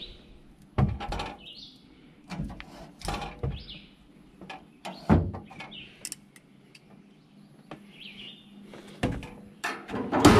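Metal knocks and clunks from the steel door and cooking grate of a Masterbuilt Sportsman Elite gas smoker being handled, the loudest clunk near the end. A bird chirps several times in the background.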